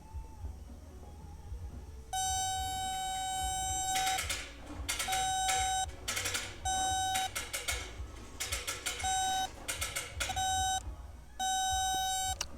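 Power probe circuit tester beeping as its tip is touched to fuse terminals: six steady beeps of different lengths, with scratchy contact noise between them. The tone reads ground at every fuse, a sign that no power is reaching the fuse box.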